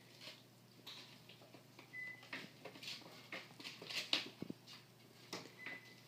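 Bengal kittens' paws and claws scuffling and tapping on a tile floor as they wrestle, in scattered soft bursts with the busiest scuffle about four seconds in. Two brief faint high squeaks sound in between.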